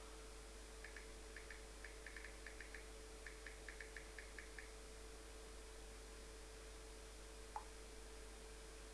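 Near silence: a faint steady hum of room tone. A quick run of about fifteen light clicks comes in the first half, and one sharper click comes near the end.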